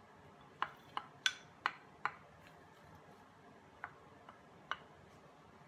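A wooden spatula and a glass bowl knocking together as sweet corn kernels are scraped out into a cast iron pan. There are five sharp taps in quick succession in the first two seconds, then three fainter ones.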